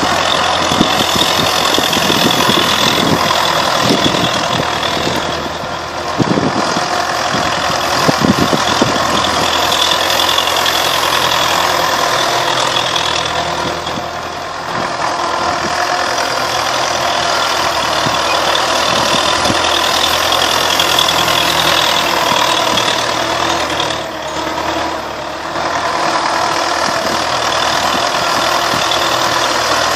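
Universal 650 M tractor's four-cylinder diesel engine running steadily, with three short dips in loudness.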